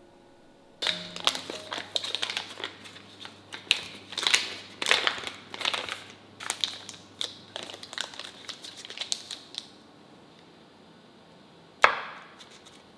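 Foil-lined butter wrapper crinkling and rustling in irregular bursts as it is peeled open from a block of butter, for about nine seconds. Near the end a knife cutting through the butter gives one sharp knock on the wooden cutting board.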